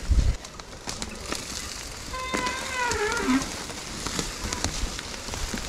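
Mountain bike rolling down a wet, muddy woodland trail: tyre noise with rattles, clicks and knocks from the bike over rough ground, and a thump at the start. About halfway through comes a brief falling whine lasting about a second.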